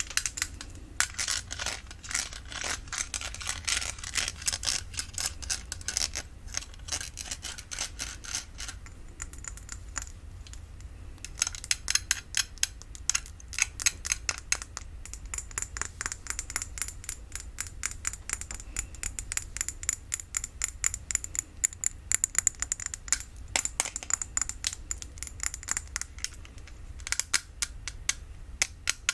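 Quick, crisp tapping and light scratching on glass perfume and cologne bottles, many taps a second, with a short lull about nine seconds in.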